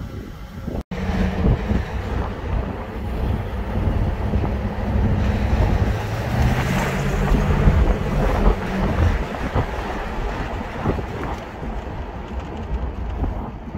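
Mercedes-Benz 560SL's 5.6-litre V8 running as the car drives, heard from inside the cabin over wind and road noise. The engine note fades about nine seconds in, leaving mostly wind and tyre noise.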